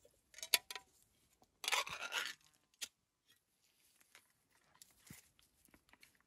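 Dog food being scraped and knocked out of an opened can into a plastic bowl: a short scrape near the start, a longer, louder rasping scrape about two seconds in, and a sharp click just before the three-second mark, followed by faint light clicks.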